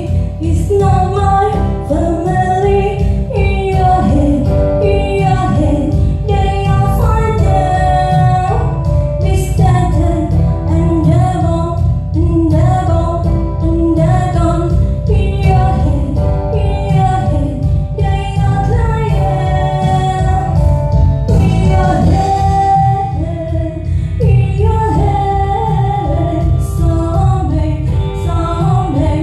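A pop song with a female lead singer and a heavy, steady bass beat, played loud through a Bandwidth BWV-2 sound system as a listening test.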